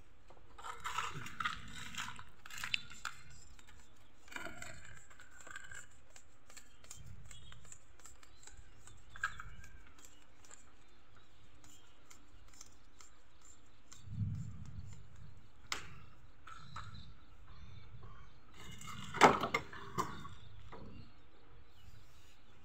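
Irregular clicks, knocks and scrapes of UPVC plastic pipe and metal hand tools being handled on a wooden workbench, with the sharpest knocks a little before the end.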